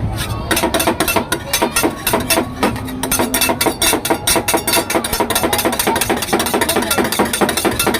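Ice cream mixture being mixed in a bowl or jar: a rapid, even clatter of many quick knocks.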